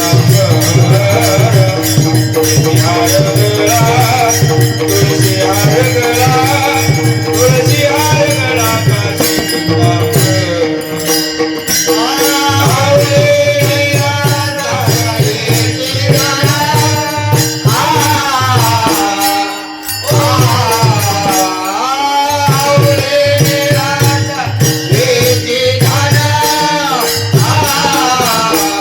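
Varkari bhajan: a male voice singing a traditional devotional melody over a steady drone, with the pakhwaj (mridang) keeping the rhythm in regular low strokes. The music briefly drops away for a moment a little past halfway.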